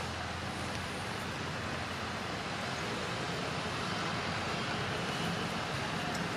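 Steady outdoor background noise: an even hiss-like haze at a constant level, with no distinct calls, knocks or voices standing out.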